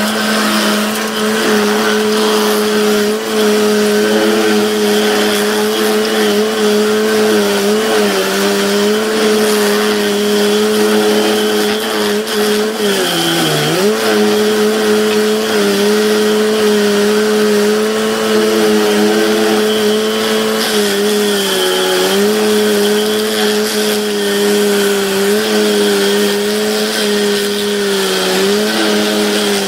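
Rayco diesel stump grinder running at high speed as its cutter wheel grinds a tree stump into chips. The engine holds a steady pitch, sagging briefly three times as the wheel bites under load.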